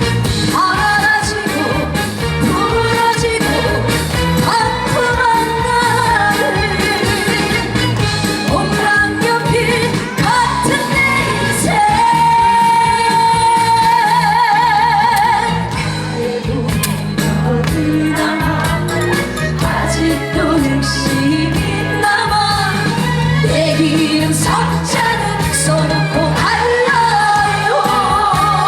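Live trot song: a sung voice with vibrato over an amplified pop-trot backing track with a steady beat.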